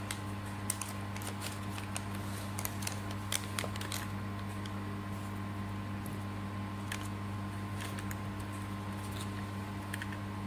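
Steady low machine hum, with light clicks and taps of small metal parts and a lens holder being handled on a table, most of them in the first few seconds.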